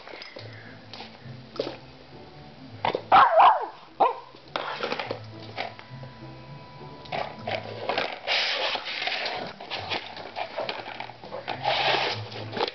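A dachshund playing with a toy mouse: one short bark-like yelp about three seconds in, with clicks and scuffling as she scrabbles at the toy, and a low on-and-off hum.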